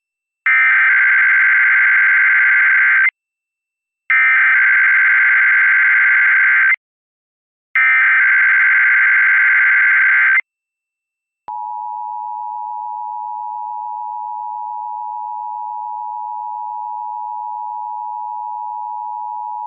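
Emergency Alert System activation for a required monthly test: three identical bursts of SAME header data, a fast warbling digital tone, each about two and a half seconds with a short gap between. About eleven seconds in, the steady two-tone EAS attention signal starts.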